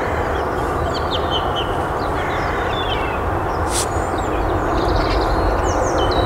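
Jet engine noise from an approaching Boeing 747-400, a steady rushing sound that grows louder toward the end. Birds chirp over it.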